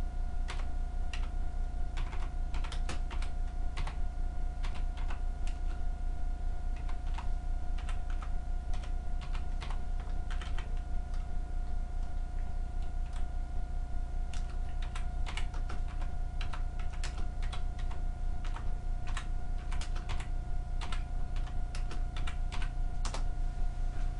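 Irregular keystrokes of someone typing on a computer keyboard, over a steady hum with a thin constant whine.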